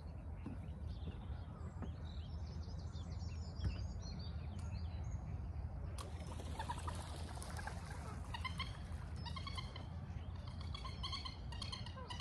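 Wild birds chirping and singing around the lake, with a run of quick repeated song phrases in the second half, over a steady low rumble. A single sharp knock stands out about three and a half seconds in.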